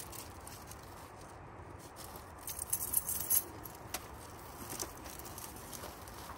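Footsteps of a small dog and a person moving over a dry pine-needle forest floor: light pattering and rustling, with a brief run of crisp rustles about two and a half seconds in that is the loudest part.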